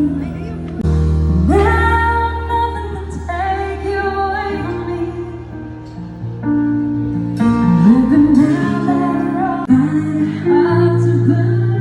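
A singer sings a slow song over instrumental accompaniment, holding long notes with vibrato above sustained bass notes that change every few seconds.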